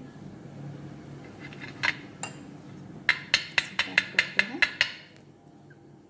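A steel spoon clinking against a steel vessel. There are two clinks about two seconds in, then a quick run of about eight sharp clinks, some five a second.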